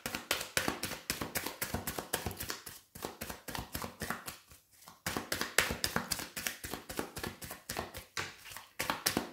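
Tarot cards being shuffled and handled: a rapid, irregular run of soft card clicks and taps, with a couple of short breaks.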